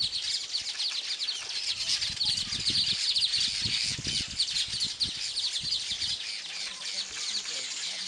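A colony of weaver birds chattering in a tree: many rapid, high chirps overlapping into a continuous racket, loudest in the middle. A few low thumps sound about two to five seconds in.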